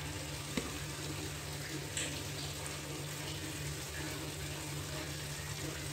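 Chilies and shallots frying in oil in an electric rice cooker pot: a steady sizzle, with a faint click about half a second in.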